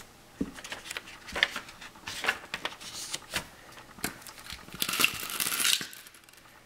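A paper template rustling and crinkling as it is pressed and smoothed against a pumpkin's rind, with light taps and clicks as it is pinned in place. There is a longer stretch of paper crinkling about five seconds in.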